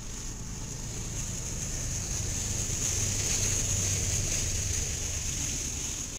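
A freight train passing close by behind BNSF diesel locomotives: a low engine rumble under a steady high hiss of wheels on rail, growing slightly louder, then cutting off abruptly at the end.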